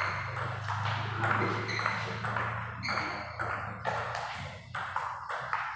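Table tennis rally: the ball clicking sharply off paddles and the table, about two to three hits a second.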